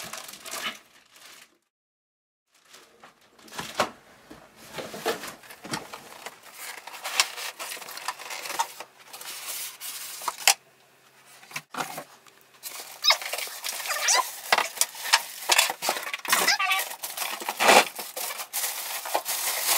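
Cardboard shipping box and styrofoam packing of a sewing machine being opened and handled: a string of rustles, scrapes and knocks, with two brief drops to near silence, about two seconds in and near the middle.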